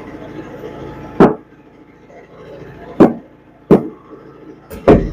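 A long knife struck into a tuna on the boat's deck to cut a marking notch: five sharp chops, one about a second in, then two spaced out, and a quick double chop near the end.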